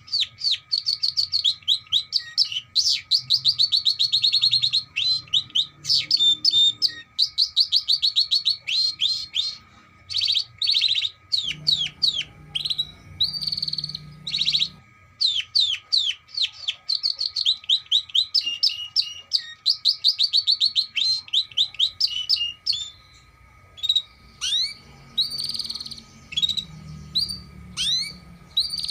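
Canary singing a long, fast song of rapidly repeated chirps and trills, broken by a few short pauses.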